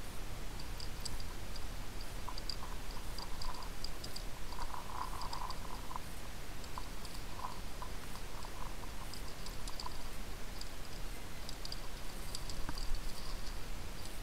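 Muffled, steady low rumble of a motorcycle riding a rough dirt road, with irregular light clicks and rattles over it, thickest in the first two-thirds.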